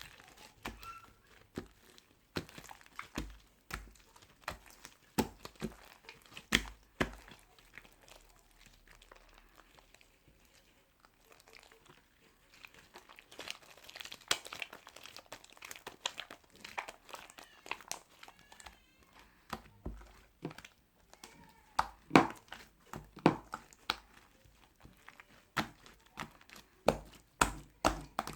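Irregular crinkling with many sharp clicks and taps, quieter for a few seconds in the middle and busiest in the last third.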